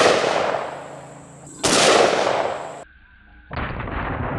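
Two AR-15 rifle shots in .223, one right at the start and one about a second and a half later, each with a long echoing tail. After a break near the end comes a duller, longer boom.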